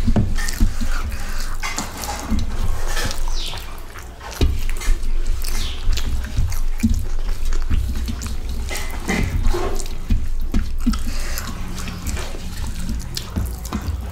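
Wet eating sounds of someone eating rice and fish curry by hand: chewing and lip-smacking, mixed with the squish of curry-soaked rice being worked by the fingers and fingers scraping a steel plate. Irregular short clicks and smacks sound throughout over a steady low hum.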